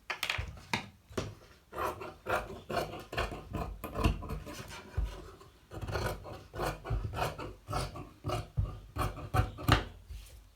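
Rapid series of short scraping strokes on fabric laid over a cutting table, about two a second, as a tailor works a blouse piece.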